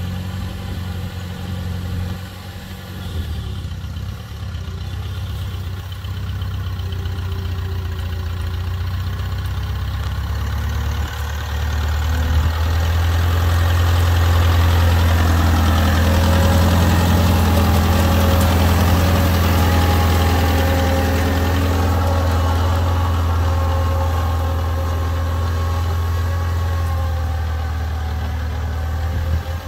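Farmall Cub tractor's four-cylinder flathead engine running at a steady speed while pulling cultivator plows through a corn row. It grows louder as the tractor comes up and passes close by about twelve seconds in, then eases off slowly as it moves away.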